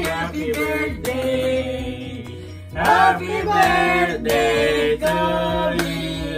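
A song with singing voices over a steady backing.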